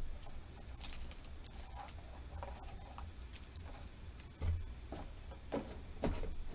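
Cardboard card-box packaging and a clear plastic card wrapper being handled: light crinkling and clicking, with a few soft knocks in the last couple of seconds.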